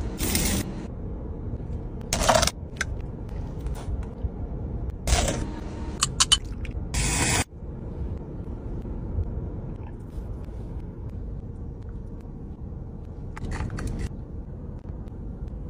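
Steady low rumble of a car cabin, with a few short scrapes of cutlery on a plate in the first half. The sound cuts off abruptly about halfway through, leaving only the rumble.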